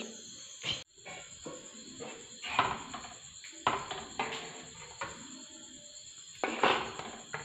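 A cricket trilling steadily at a high pitch, with a handful of short scrapes and clinks of steel kitchen utensils in between.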